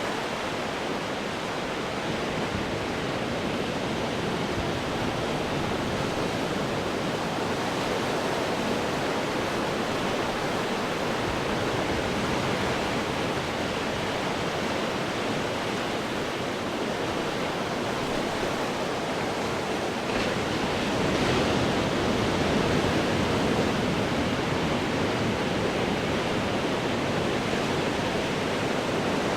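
Ocean waves breaking on rocks: a steady wash of surf, with a louder surge about two-thirds of the way through.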